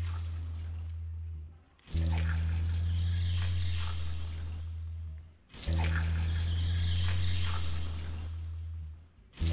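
Experimental soundtrack: a low drone with a hissing layer above it, played as a loop of about four seconds. Each pass fades, drops out briefly and starts again, twice within these few seconds.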